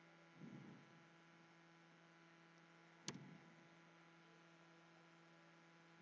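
Near silence with a steady low electrical mains hum. There is a soft, brief low sound about half a second in and a single sharp click about three seconds in.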